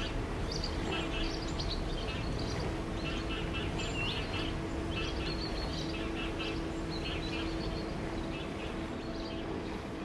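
Small birds chirping: many short, high chirps in quick clusters throughout, over a steady low hum and a low background rumble.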